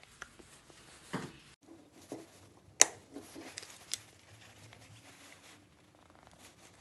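Plastic clips being fitted back onto a CNC vacuum pod by hand: a few faint clicks and light knocks of plastic, the sharpest about three seconds in.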